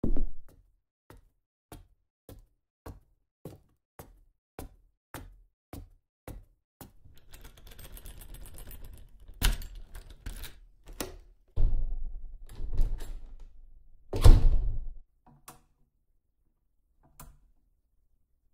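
A run of evenly spaced knocks, about two a second, growing fainter, then a rushing hiss and several heavier thumps, the loudest about two-thirds of the way through.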